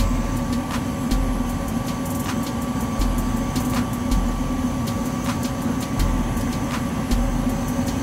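Gas furnace running with a steady motor hum, over which come scattered small metallic clicks of an Allen key working the pressure-port screw on the gas valve.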